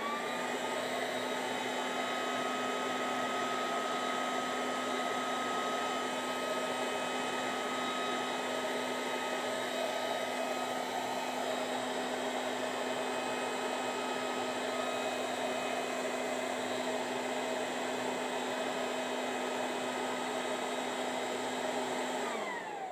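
Sun Joe SBJ601E 10-amp electric leaf blower running on its high speed (stage 2): a steady whine over a rush of air. It rises to speed at the start and is switched off near the end, its whine falling as it spins down.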